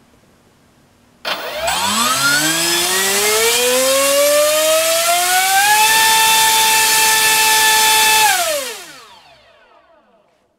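NTM PropDrive 3536 1800 kV brushless outrunner motor on a 5-cell pack, spinning a 6x6 Gemfan high-speed propeller on a thrust-test stand. It starts about a second in with a whine that rises steadily as the throttle comes up, holds at full throttle for about two and a half seconds, then winds down and fades away.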